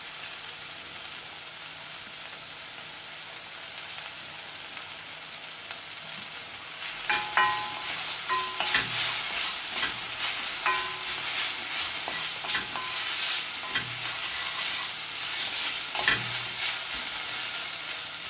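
Sliced onions and spices sizzling steadily in oil in an enamel-lined pot. About seven seconds in, a wooden spoon starts stirring them, adding repeated scrapes and light knocks against the pot over the sizzle.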